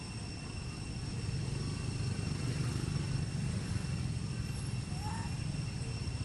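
Steady low outdoor rumble with faint, steady high-pitched tones above it, and a couple of brief rising chirps about five seconds in.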